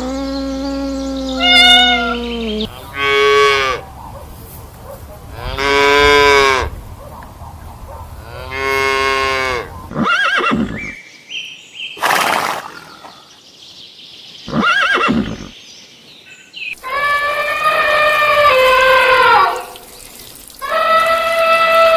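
A series of separate animal calls with short pauses between them. It opens with a long low call, then three rising-and-falling calls about three seconds apart, and ends with two longer calls that fall in pitch.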